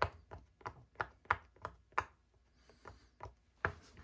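Silicone push-pop bubble fidget toy being pressed bubble by bubble: a quick run of soft clicks about three a second, a short pause, then a few more. There is not much sound: the bubbles give a dull press rather than a crisp pop.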